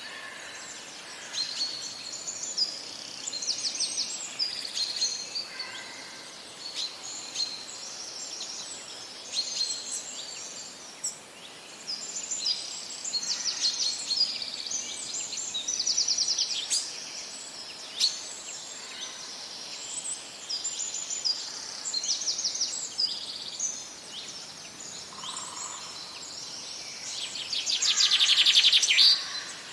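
Songbirds singing, a steady chorus of high chirps and rapid trills, with the loudest trill near the end.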